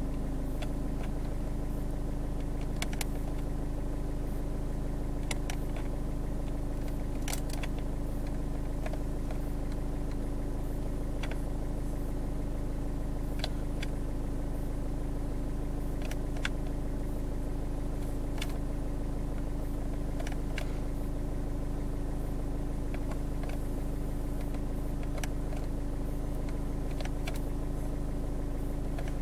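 Ford Fiesta MK7's 1.4 L Duratorq TDCi (DV4) diesel engine idling steadily, heard from inside the cabin.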